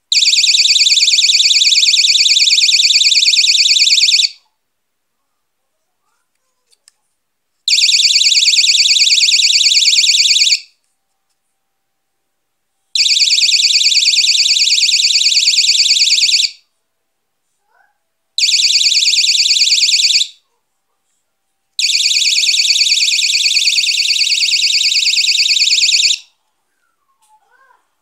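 Battery-powered magnetic door/window alarm's built-in siren sounding a shrill, fast-pulsing electronic tone in five abrupt bursts of two to four and a half seconds each. It is triggered each time the magnet is moved away from the unit's reed switch, as when a door or window is opened.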